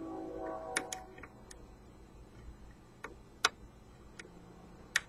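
Sharp, irregular metallic clicks of a lock pick and tension wrench working the pins inside a pin-tumbler lock, about seven separate ticks spread over a few seconds.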